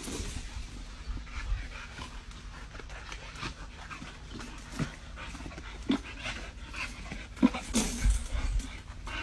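Dogs panting while they jump at and bite a hanging rubber tire swing, with short scuffs and knocks throughout; the loudest knocks come about seven and a half and eight seconds in.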